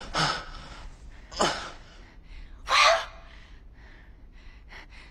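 Three sharp, breathy gasps from a person, about a second and a quarter apart, the third the loudest, followed by fainter short breaths.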